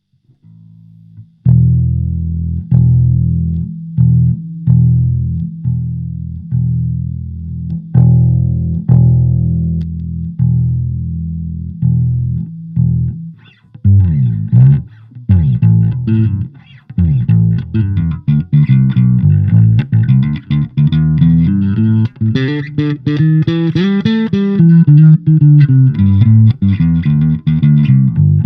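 Electric bass guitar played through a Fender Rumble 25 bass combo amp. For about the first half, slow plucked notes ring out about one a second. The rest is a faster, busier line with runs climbing and falling and a brighter, more cutting tone.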